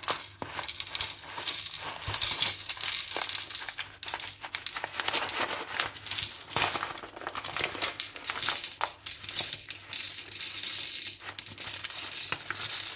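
Dry popcorn kernels poured from a plastic bag into a small glass bowl: a dense rattling patter of kernels striking the glass and each other, with the plastic bag crinkling.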